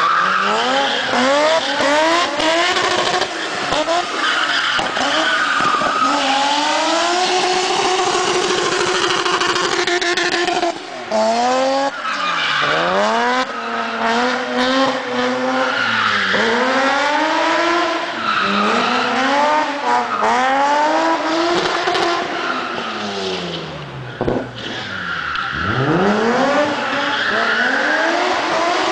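A drift car doing burnout spins: its engine revs up and down again and again over the squeal of spinning tyres. Twice, about a third of the way in and again near the end, the revs fall away sharply and then climb back.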